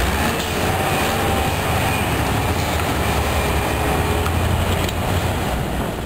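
Bobcat S330 skid-steer loader's diesel engine running steadily under load while the machine lifts and drives with a grapple full of cut brush.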